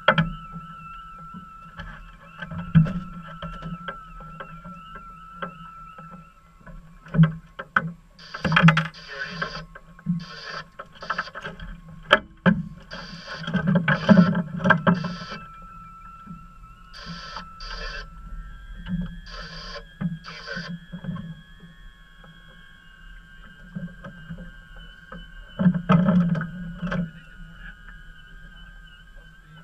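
Small fishing boat sitting on calm water: water lapping against the hull, with a faint wavering whistle-like tone throughout and a run of short bursts of noise in the middle.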